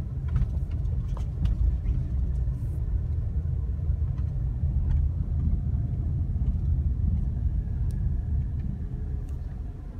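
Low, steady rumble of a car rolling slowly across a parking lot, heard from inside the cabin, with a few faint ticks.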